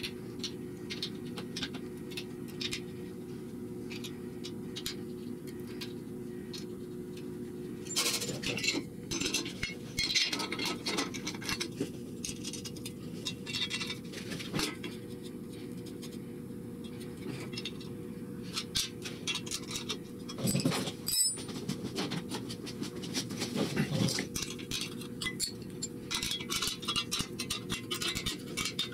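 Small metal clinks and scrapes of bolts, nuts and a wrench being handled and tightened as a steel gantry support is bolted to a motor plate, over a steady low hum.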